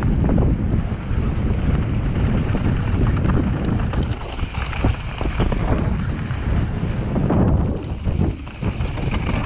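Wind buffeting the camera microphone as a Cube Stereo mountain bike runs fast downhill on a dirt and gravel trail, with tyre noise and short knocks and rattles from the bike over bumps.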